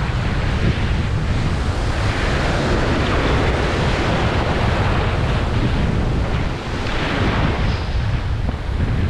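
Ocean surf washing in over shoreline rocks, with wind buffeting the microphone throughout.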